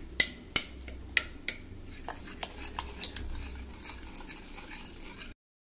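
Metal ladle mashing and stirring pressure-cooked dal inside the pressure cooker pot, knocking and clinking against the pot's sides. The sharpest knocks come in the first second and a half and again around three seconds in, with softer scraping ticks between. The sound cuts out briefly near the end.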